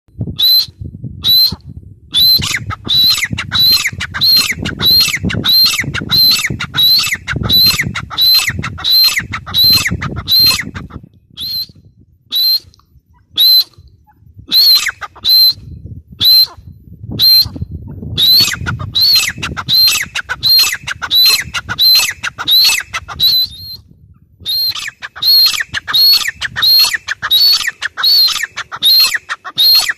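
Gray francolin calling: a long run of high-pitched, sharp notes, about two a second, with a sparser stretch and a short break partway through.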